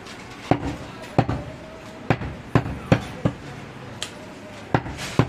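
Heavy butcher's knife chopping into a goat leg on a wooden log chopping block: a series of sharp chops, about eight, at uneven intervals.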